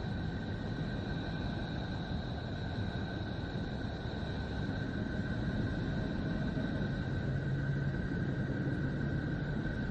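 Space 'sound' of the planet Neptune: a steady low rumbling hiss with two faint, steady, high whistling tones running through it. A low hum grows stronger about seven seconds in.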